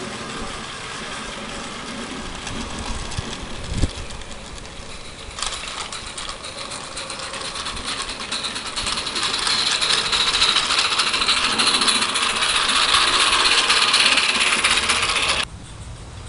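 Small live-steam garden-railway locomotive hissing steam. The hiss starts abruptly about five seconds in, grows louder, and cuts off suddenly near the end. A single knock comes shortly before the hiss begins.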